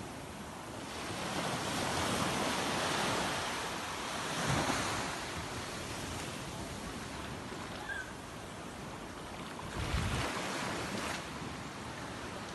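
Sea waves washing ashore in slow swells of noise, with wind buffeting the microphone now and then.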